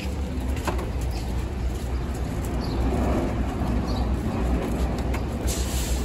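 City street background noise: a steady low traffic rumble, with birds chirping briefly now and then and a few light clicks.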